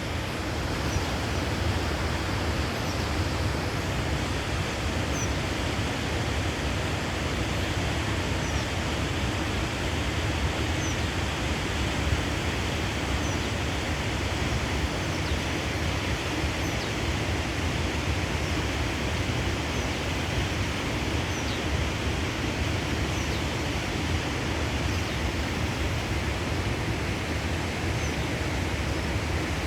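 Steady, unbroken rush of water, with faint high bird chirps every second or two.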